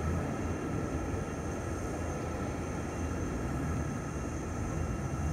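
Jet airliner engines running at taxi power: a steady low rumble with a faint constant whine over it.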